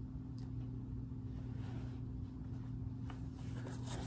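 Faint handling noises, a few soft clicks and rustles, as sneakers are set down and another pair picked up, over a steady low electrical hum.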